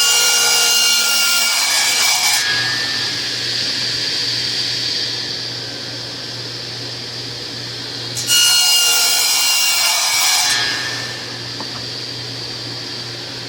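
Radial arm saw running and crosscutting plywood. One cut is under way at the start and runs about two seconds, and a second cut comes about eight seconds in. The motor hums steadily between the cuts.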